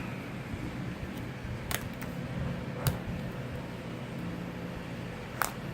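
Steady low hum of room noise, with three sharp clicks or taps spread through it.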